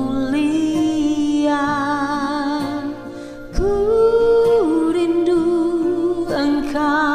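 Slow song music carrying a melody of long held, wavering notes, stepping up to a higher held note about halfway through.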